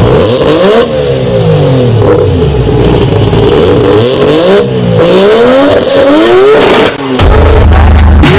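Mazda RX-7's rotary engine revved in repeated blips, its pitch rising and falling with each one. About seven seconds in it gives way to a deep, steady bass.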